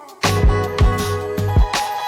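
Background music: a funk/soul-style track with guitar, bass and a steady kick-drum beat.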